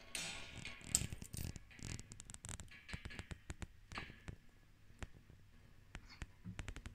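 Plastic Playmobil toy parts being handled: a burst of rustling and scraping with sharp clicks over the first couple of seconds, then scattered single clicks and taps of plastic.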